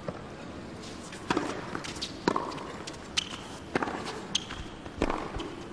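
Tennis ball struck by rackets and bouncing on a hard court during a point, a series of sharp pops about a second apart, with short sneaker squeaks on the court.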